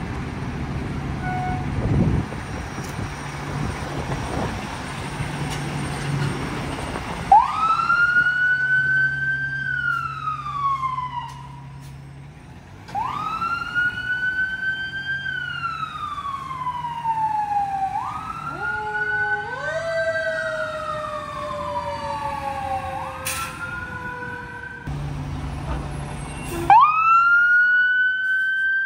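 Fire engine's diesel engine running as it pulls out. About seven seconds in, an electronic wail siren starts, rising quickly and falling slowly in long repeating cycles. Around twenty seconds in, a lower mechanical siren tone, the Federal Q2B, winds up in steps and coasts down beneath the wail.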